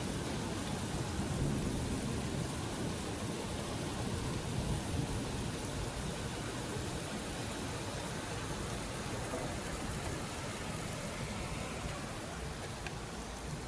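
Steady rainfall on outdoor surfaces, with low thunder rumbling during the first half.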